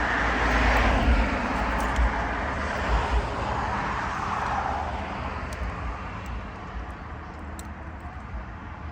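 Distant engine noise swelling and then fading away over several seconds, with a low wind rumble on the microphone and a few faint clicks.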